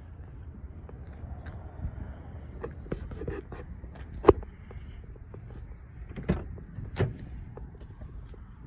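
Footsteps and phone-handling noise: scattered short clicks and knocks over a low steady rumble, the loudest a sharp click about four seconds in.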